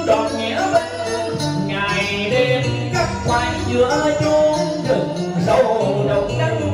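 A male singer sings Vietnamese cải lương (tân cổ vọng cổ) through an amplified microphone, with drawn-out, gliding melodic lines over instrumental accompaniment.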